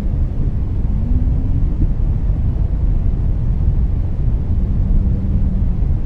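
Whale calls over a steady, low underwater rumble: a faint short rising moan about a second in and a low held note near the end, with the rumble much louder than the calls.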